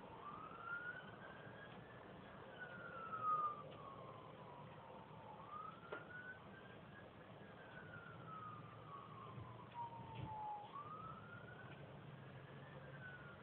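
An emergency-vehicle siren wailing faintly, its pitch rising and then falling slowly in cycles of about five seconds, with a few faint knocks.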